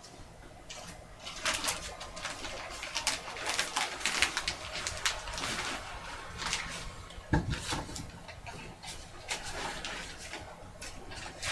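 Cardboard puzzle cards and game pieces being handled and pushed into a board game's puzzle board: irregular rustling, scraping and light clicks, with one louder knock about seven seconds in.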